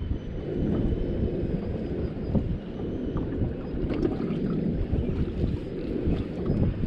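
Small fishing boat under way, a steady rumble of the motor and hull through the water, with wind buffeting the microphone.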